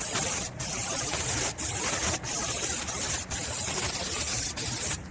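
Aerosol can of Armor All tire foam spraying in a run of about seven short bursts, each a hiss of half a second to a second with brief breaks between, as the foam is laid over an engine.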